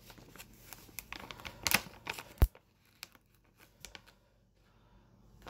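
Handling noises: rustling and scattered clicks for the first couple of seconds, a sharp knock about two and a half seconds in, then only a few faint ticks.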